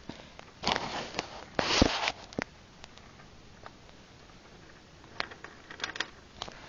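Russian dwarf hamster scrabbling in wood-shaving bedding: two bursts of rustling about one and two seconds in, then scattered light crackles and clicks.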